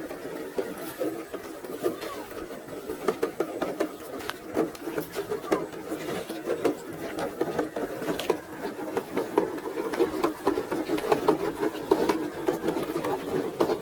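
HB ZP1008 RC off-road car's small electric motor and gears whirring unevenly as it drives over rock, with many sharp clicks and knocks throughout.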